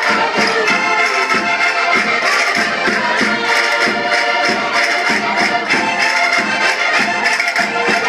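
Several button accordions playing a folk dance tune together, with a steady beat.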